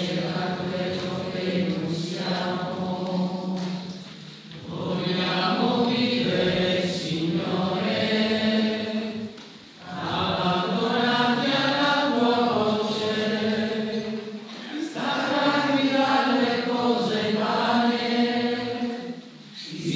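Church congregation singing a hymn together, in sustained phrases of about five seconds with short breath pauses between them.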